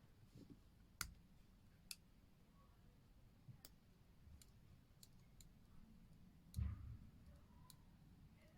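Faint, irregular small clicks and taps a second or more apart from handling a watch and small tools at a bench, with one soft knock about two thirds of the way through.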